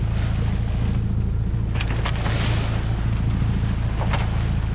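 Sailing yacht's engine running steadily under way, with water rushing and splashing along the hull and wind on the microphone; a bigger wash of water swells up about two seconds in and again briefly near the end.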